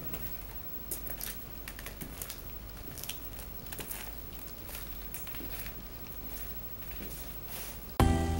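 Soft, irregular footsteps over a low steady hum. Music starts near the end.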